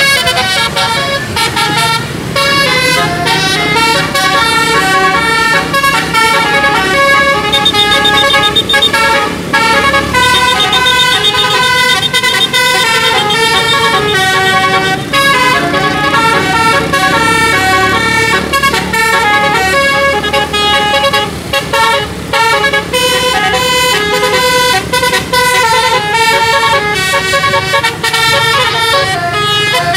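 A bus's 'telolet' multi-tone musical air horn playing long, unbroken melodic runs of notes that step up and down, over a steady low hum.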